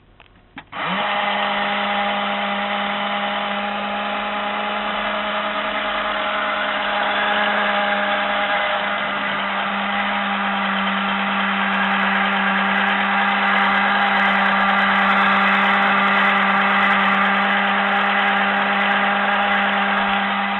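Battery-powered toy washing machine's small electric motor starting up after a couple of clicks less than a second in, then whirring steadily at one even pitch.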